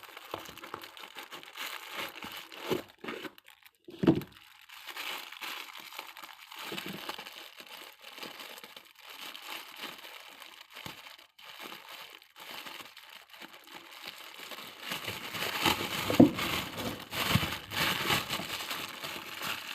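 Plastic packaging crinkling and rustling as it is handled and opened, with a few sharper knocks; the handling gets busier and louder near the end.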